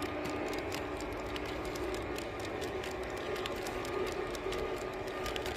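G-scale model train rolling past: wheels clicking irregularly over the track, over a steady whine from the motor and gears.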